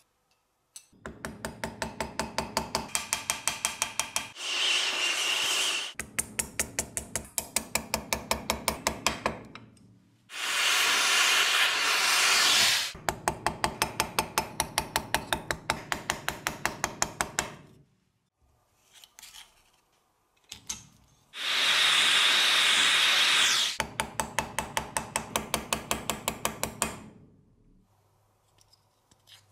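Hammer blows on a steel punch, folding a thin metal sheet over a form clamped to a steel block: fast, even metal-on-metal taps at about five or six a second, in runs of several seconds. Three times the tapping gives way to about two seconds of steady loud hiss.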